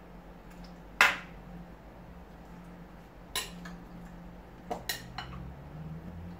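Metal serving spoon clinking against serving dishes: one sharp clink about a second in, the loudest, then four lighter clinks over the second half, over a steady low hum.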